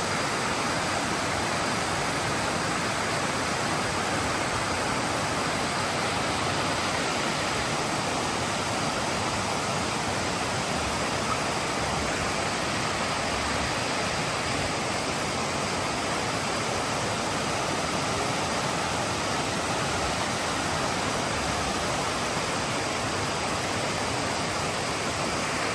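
Waterfall: the steady, even rush of cascading water, unbroken throughout.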